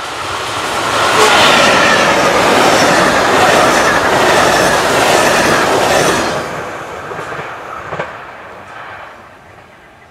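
SNCB class 27 electric locomotive hauling five M6 double-deck coaches passing close by at speed: the rush of wheels on the rails grows over the first second, holds loud for about five seconds as the train goes by, then fades as it runs away. A single sharp click comes about eight seconds in.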